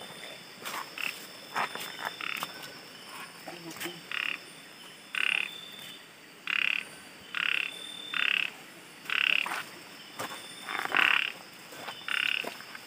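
Frogs calling: short croaks repeated roughly once a second, with faint clicks in between.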